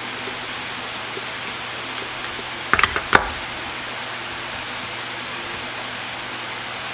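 Steady fan-like background hiss, with a brief clatter of a few quick knocks and one louder knock about three seconds in, from parts being handled while a bench vise is taken apart.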